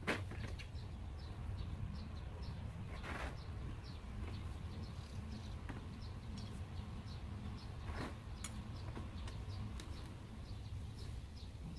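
Wooden beehive parts knocking and scraping as the hive is worked, the sharpest knock right at the start and a few more later, over a steady low hum. A bird chirps repeatedly throughout.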